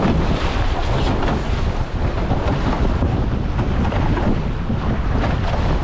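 Steady wind rumble on the microphone over the rushing hiss of water along the hulls of a Nacra F18 catamaran sailing.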